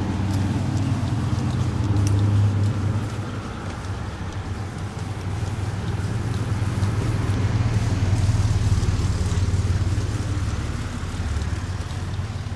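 G-scale model train running on the garden track: a steady low hum of motor and wheels, louder about two seconds in and again from about eight to ten seconds.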